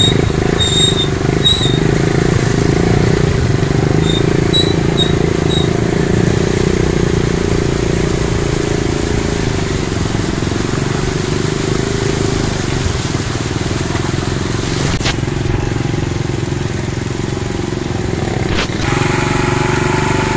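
Honda motorcycle engine running steadily as the bike rides through floodwater, with water swishing and splashing off the front wheel.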